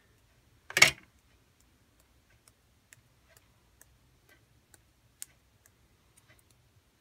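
A single knock about a second in, then faint, irregular ticks as the bristles of a fan brush loaded with thinned white paint are flicked to spatter paint onto the page.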